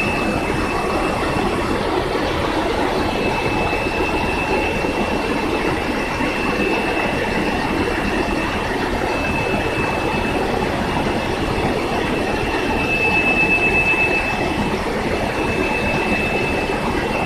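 Samhoor Precision-45HK gantry-type high-speed punching press running: a rapid, even mechanical clatter with a constant high whine over it.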